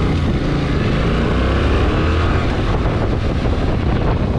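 Yamaha Tracer 7's parallel-twin engine pulling away, its pitch rising over the first couple of seconds, with wind rushing over the microphone.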